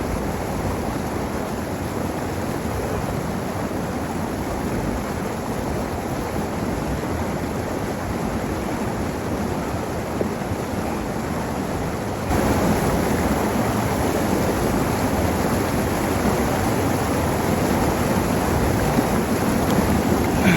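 Steady rush of running water from a small waterfall, stepping up a little louder about twelve seconds in.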